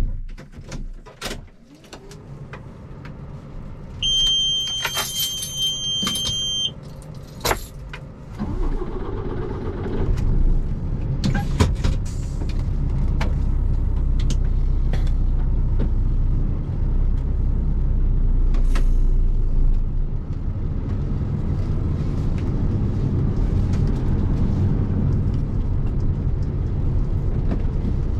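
A Tatra Phoenix truck's diesel engine is heard from inside the cab: it starts with a few clicks and settles to a low idle. A steady two-tone warning beep from the dashboard sounds for about two and a half seconds. From about eight seconds in, the engine note grows louder and stays steady as the truck pulls away.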